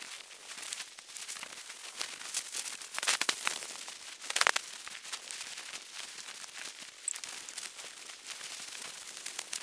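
Camping gear being handled and packed: rustling, crinkling material and small clicks, with footsteps, loudest in two rustling bursts about three and four and a half seconds in.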